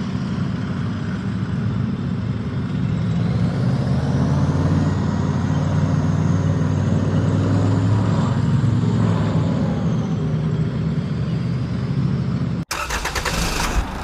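An engine running steadily at low speed, with a faint higher whine that rises and falls in the middle. It cuts off abruptly near the end and a different, noisier sound takes over.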